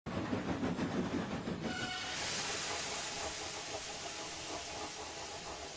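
Steam locomotive chuffing for under two seconds, then a steady, loud hiss of steam being let off.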